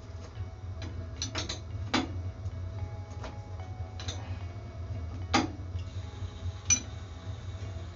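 Metal wrench clicking and clinking on the flange nuts of an Armstrong S25 circulator pump as they are loosened: irregular sharp clicks, a quick cluster about a second and a half in, then single ones, over a steady low hum.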